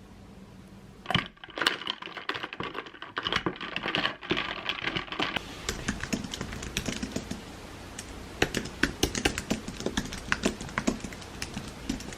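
Typing on a computer keyboard: quick, irregular key clicks that begin about a second in and keep going.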